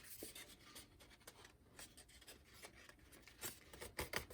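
Faint rustling and rubbing of a folded paper model being handled, with a few sharper crinkles near the end.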